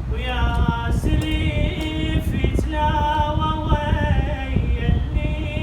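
A man singing unaccompanied in long held, wavering notes, with a steady low rumble beneath.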